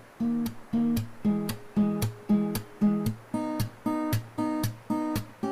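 Background music: an acoustic guitar strummed in a steady rhythm, about four strokes a second.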